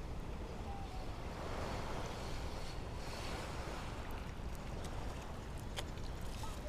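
Sea waves washing on the shore, with wind buffeting the microphone; a single sharp click about six seconds in.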